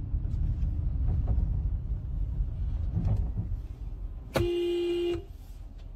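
Low rumble of a car, heard from inside the cabin, then a single car horn blast a little over four seconds in, a steady tone held for under a second before it cuts off.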